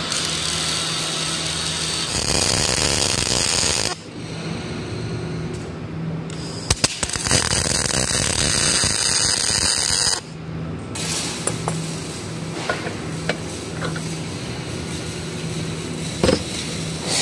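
MIG welding arc crackling and buzzing as hex nuts are welded onto a steel plate. It runs in long stretches that break off sharply about four and ten seconds in, with scattered clicks in the quieter stretch near the end.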